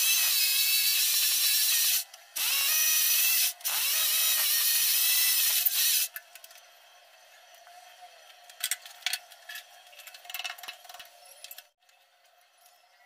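Electric drill boring holes into a ceramic-tiled wall, running in three bursts over the first six seconds with the motor pitch rising as each burst starts. Faint clicks and scraping follow from about eight seconds in.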